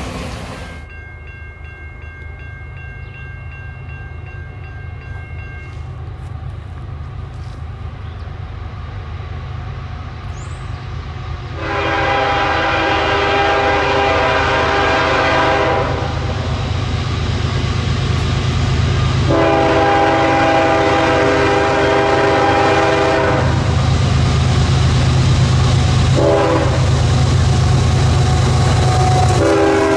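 Air horn on the lead GE ES44AC of an approaching freight train sounding the grade-crossing signal: two long blasts, a short one, and a last long one starting near the end. Under it the rumble of the diesel locomotives grows louder as they near.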